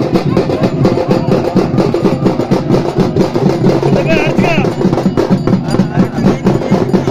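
Festival drums beating a fast, steady rhythm, with crowd voices underneath and a brief wavering high-pitched call about four seconds in.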